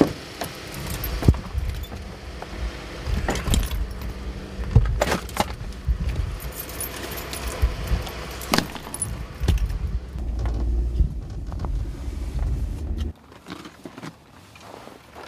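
Pickup truck running, with a steady low rumble and frequent rattling and clicking from loose gear inside the cab. The rumble stops suddenly about thirteen seconds in, leaving quieter scattered clicks.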